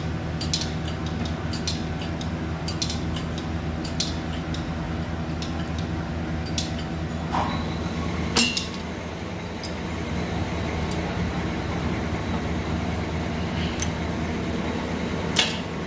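Hand pallet truck being worked just after new hydraulic seals were fitted, giving scattered sharp metallic clicks and clinks at uneven intervals. Under them runs a steady mechanical hum with several low tones.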